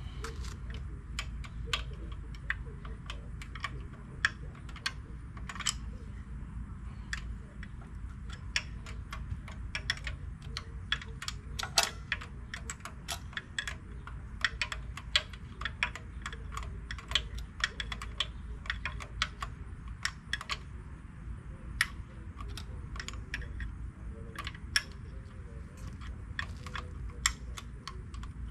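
Hand tools working on the bare Ford 302 V8 engine: irregular sharp clicks and metal clinks, several a second, as bolts are worked loose.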